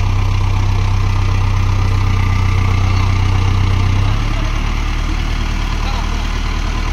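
Diesel tractor engine running steadily under the stuck tractor's effort to climb a rear wheel out of a muddy ditch, a deep even hum. About four seconds in it drops to a lower, rougher note.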